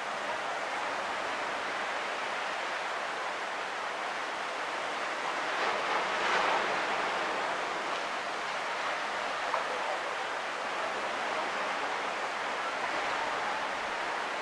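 Surf washing steadily onto a sandy beach, a continuous hiss of breaking waves, with one wave swelling louder about six seconds in.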